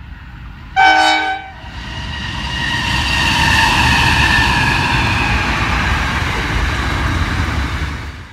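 Diesel freight locomotive sounds one short horn blast about a second in, then passes close by hauling container wagons: engine drone and wheel rumble that build to a peak as the locomotive goes past, with a faint whine that slowly falls in pitch.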